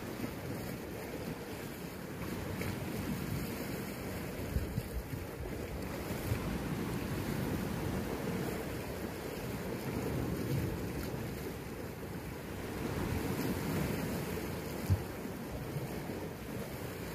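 Small sea waves washing against shoreline rocks, with wind rumbling on the microphone. A few short thumps stand out, the sharpest near the end.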